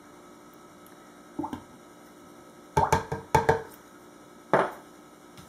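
Glass jar clinking a few times against the rim of a mixing bowl, then knocked down once more near the end: short, sharp knocks with a slight ring.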